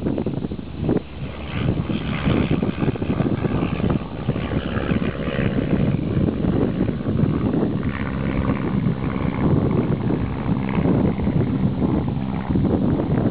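De Havilland Chipmunk's piston engine and propeller at takeoff power as the aircraft runs down the runway and climbs away, heavily buffeted by wind on the microphone.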